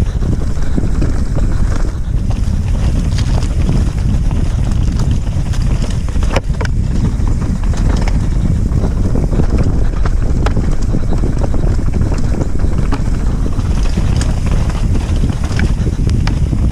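Heavy wind buffeting on the microphone during a fast downhill trail ride, with scattered clicks and rattles from the bike over rough ground.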